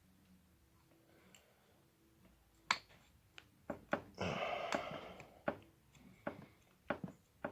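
Scattered sharp clicks and taps of small metal parts and hand tools being handled while fitting a rail to a rifle, starting a few seconds in, with about a second of rougher noise in the middle.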